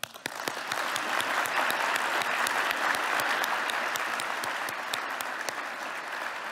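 Large audience applauding: a few claps, then within half a second a dense, steady ovation of many hands clapping that eases slightly near the end.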